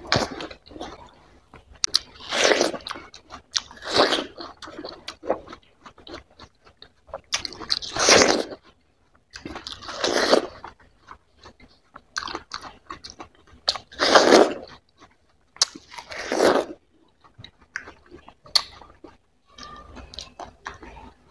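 Close-miked bites into a juicy watermelon slice and chewing: a loud crunching bite every couple of seconds, with wet chewing clicks between, tailing off near the end.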